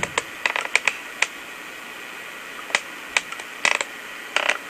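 Scattered sharp clicks and taps in small clusters over a steady hiss, played back from an 8mm camcorder tape through a small Bluetooth speaker.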